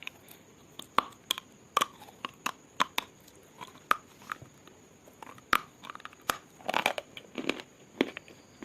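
Close-up crunching as a person bites into and chews something hard and brittle. There are sharp, irregular cracks, with a quick flurry about seven seconds in.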